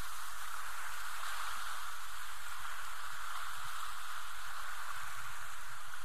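Small surf washing up onto a sandy beach, a steady hiss of water and foam.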